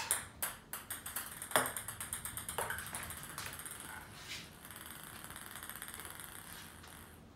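Ping pong ball bouncing on a ceramic tile floor: a run of sharp ticks, with a louder hit about one and a half seconds in, the bounces coming quicker and fainter as the ball settles into a roll.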